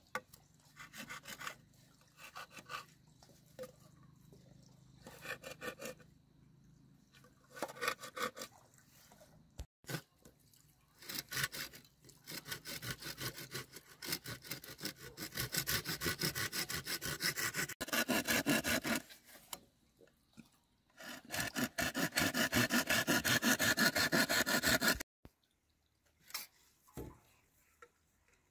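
Hand saw cutting through green bamboo poles with quick back-and-forth strokes. The strokes come in short runs at first, then in long steady runs through the second half that stop abruptly near the end.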